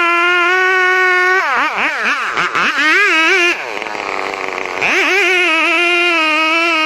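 Chainsaw engine running at high revs while cutting: a high, wavering pitch that sags sharply as the chain bites and recovers. About halfway through it drops back to a quieter, lower-pitched note for about a second and a half before rising again.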